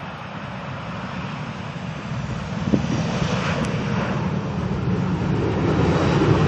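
Jet airliner engines rumbling, growing steadily louder as the aircraft approaches.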